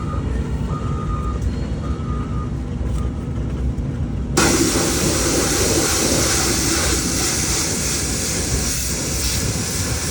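Heavy diesel machinery running with a low rumble, while a backup alarm beeps about once a second. About four seconds in, a loud steady hiss abruptly takes over above the engine rumble.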